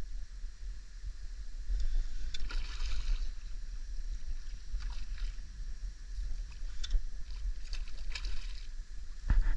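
Small-boat noise: a steady low rumble with hissing splashes and scattered light knocks, and a sharper knock near the end.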